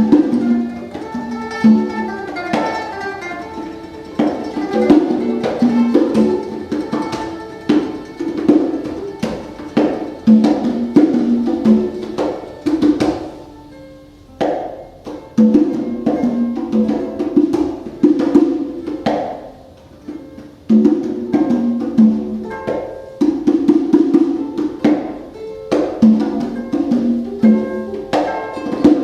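Freely improvised acoustic music: plucked strings such as ukulele or mandolin against sharp hand-percussion strikes, with no steady beat. The playing thins out briefly twice, about halfway through and again a few seconds later.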